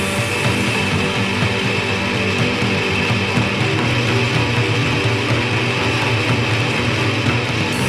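Instrumental passage of a mid-1990s noise pop song: a band plays a dense, steady wall of electric guitars with no singing.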